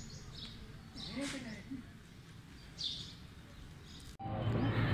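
Small birds chirping a few times, short high calls, over faint background noise, with a brief distant voice about a second in. About four seconds in the sound cuts abruptly to a much louder steady low hum and noise.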